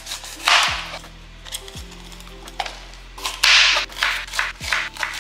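Kitchen knife cutting through a green bell pepper: two crisp slicing crunches, about half a second in and the louder one near three and a half seconds, with sharp taps of the blade on the cutting board. Background music with deep bass notes plays underneath.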